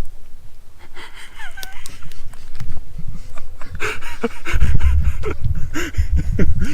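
A person panting and gasping close to the microphone, with low rumbling handling noise and scattered clicks that get heavier in the second half.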